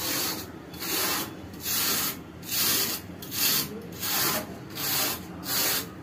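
Brush scrubbing back and forth across the fins of a window AC's condenser coil, about eight hissing strokes at a little over one a second. The coil is choked with dust and is being cleaned out.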